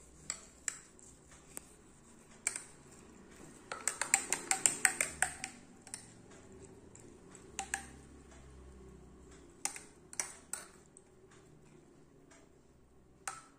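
Metal spoon clinking against a drinking glass while stirring fennel seeds in water: scattered single clinks, with a quick run of rapid clinks about four seconds in.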